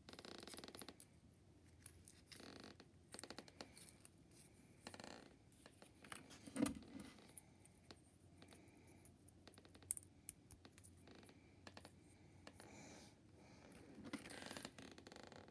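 Faint rustling and scraping of small craft pieces handled at close range, with scattered light clicks and taps. The sharpest tap comes about six and a half seconds in, and another about ten seconds in.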